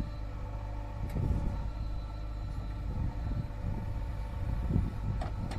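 Diesel engine of heavy earthmoving machinery running steadily under work, swelling louder about a second in and again near the end.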